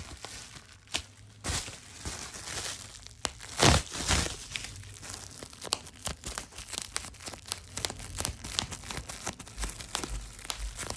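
Headset packaging being crinkled and crushed by hand: a dense, irregular run of crackles and clicks, with one louder crunch a little under four seconds in.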